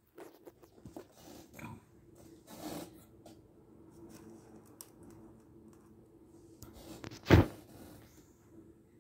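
Handling noises: scattered clicks and short scrapes over a faint steady hum, with one loud thump about seven seconds in.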